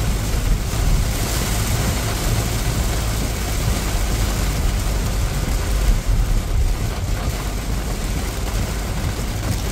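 Heavy rain pelting a car's windshield and roof, heard from inside the moving car, over a steady low rumble of the engine and tyres on the wet road.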